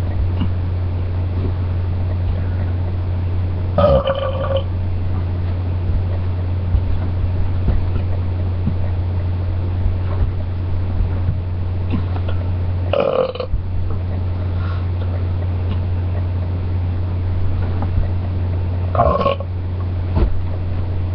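A person belching three times, short burps of about half a second each, spaced several seconds apart, over a constant low hum.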